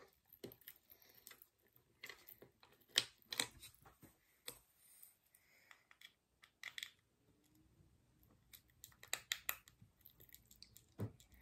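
Faint, scattered small clicks and light taps from fingerboard truck bolts and a small tool being handled while the trucks are fitted to the deck, a few sharper ticks standing out.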